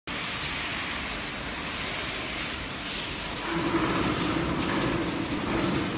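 Large DPTBS-1000 hydraulic press running: a steady mechanical hiss and hum, with a low steady hum coming in and the level rising a little just past halfway.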